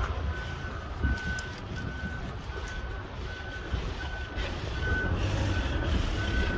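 A large vehicle's reversing alarm, most likely the coach's, beeping steadily in one high tone about once every three-quarters of a second, over the low rumble of street traffic.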